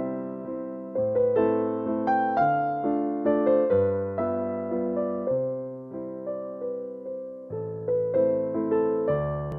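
Background music: a gentle piano melody over sustained bass notes, each note struck and fading away.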